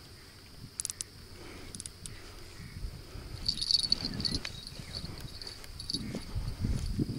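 Steady high chirring of insects, crickets or grasshoppers in the grass, louder and pulsing for a couple of seconds in the middle. A few sharp clicks and soft low thumps come from the fishing rod being handled and set down on the muddy bank.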